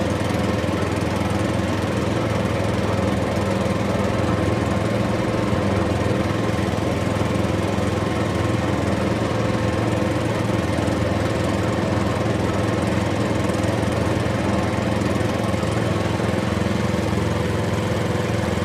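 Rice combine harvester's diesel engine running at a steady speed, an even drone with no change in pitch.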